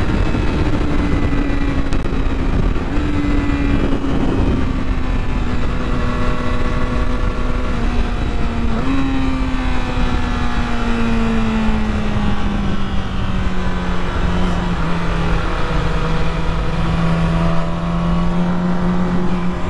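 Sport motorcycle engine running at high revs with heavy wind rush, its pitch sinking slowly and jumping up twice, about three and nine seconds in.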